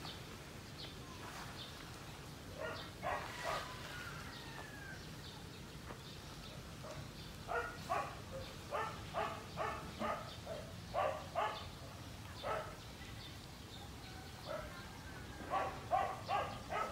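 A dog barking in several runs of short barks, the last run faster, over a steady low hum.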